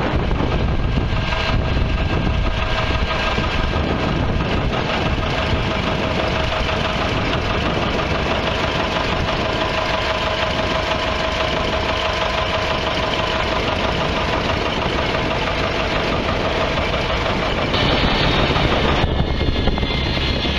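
An engine idling steadily, its sound changing near the end.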